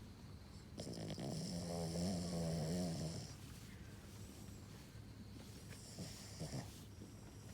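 A dog snoring: one long snore about a second in, lasting some two seconds.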